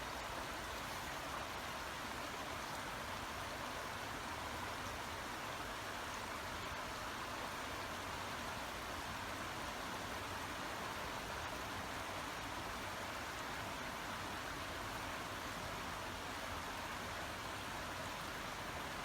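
Babbling brook: water flowing in a steady, even rush that does not change.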